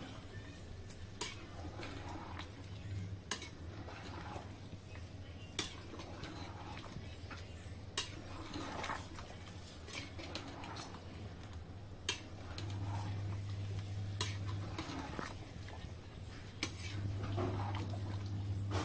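Metal spoon stirring a thick curry in a large pot: soft sloshing and scraping with scattered sharp clinks of the spoon against the pot, over a low steady hum.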